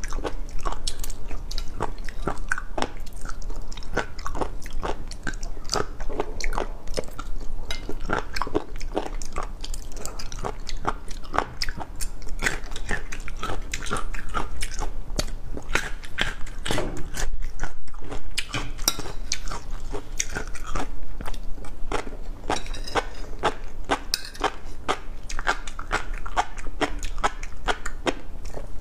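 Close-miked chewing of fish roe: a dense, irregular run of crunches and small sharp pops as the eggs burst between the teeth.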